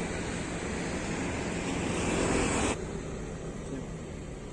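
Steady rushing outdoor background noise that drops suddenly to a quieter hiss about two and a half seconds in.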